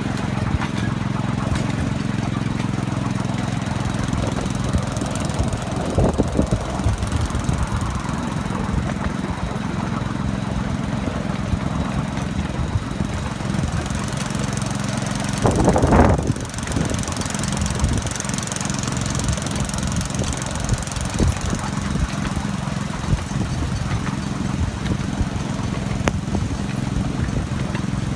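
Small engine of a 7¼-inch gauge miniature railway locomotive running steadily while the train travels, with a constant low hum and wheels clicking on the rails. A short, louder burst about halfway through.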